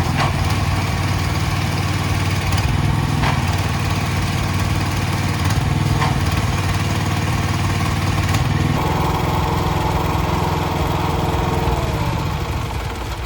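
Aipower APW4400 pressure washer's 459cc single-cylinder petrol engine running steadily. A higher tone joins about nine seconds in.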